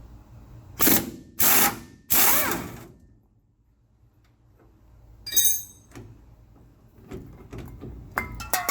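Power impact wrench run in three short bursts, the last one longest with its motor pitch sliding, breaking loose a rusted shock absorber mounting nut. A short metallic ring follows, then light clinks of metal parts and tools near the end.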